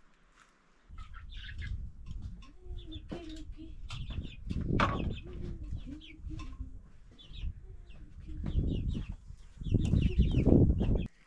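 Chickens clucking and calling over a loud low rumble that starts suddenly about a second in and cuts off just before the end.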